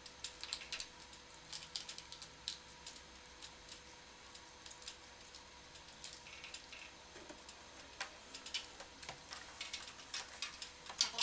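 Light, irregular clicks and taps of an antenna cable being handled and fastened along a wall, a little louder near the end.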